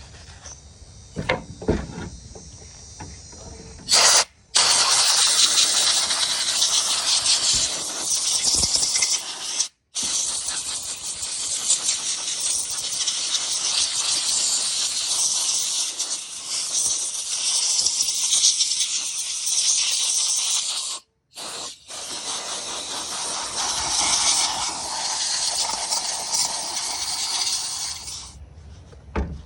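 A few light knocks, then a loud, steady hiss of a pressurised jet blasting grime off the chainsaw. It stops briefly three times and cuts off near the end.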